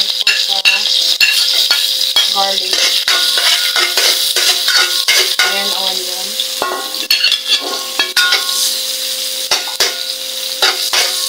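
Vegetables sizzling in hot oil in a stainless-steel wok, with a metal spatula scraping and clinking against the pan as they are stirred.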